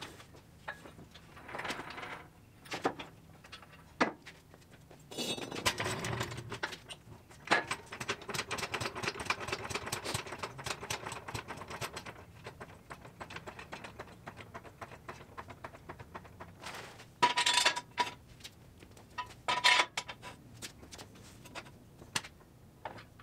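Steel shop equipment being handled: a floor jack rolled and pumped under a steel engine hoist, with a long run of rattling clicks and knocks. Later come two loud, ringing metal clanks about two seconds apart as steel jack stands are set under the hoist.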